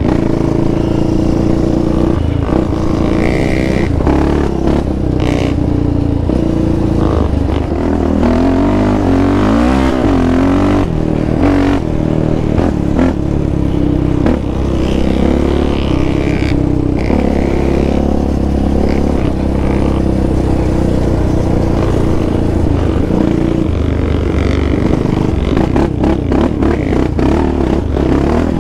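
Yamaha Raptor 700R quad's single-cylinder four-stroke engine running as it is ridden along a rough dirt trail, its pitch rising and falling with the throttle, with scattered knocks and rattles over bumps.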